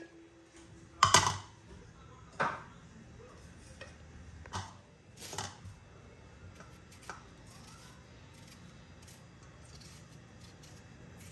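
A few irregular sharp knocks and clatters of kitchen things being handled and set down, loudest a little after a second in, then only quiet room tone.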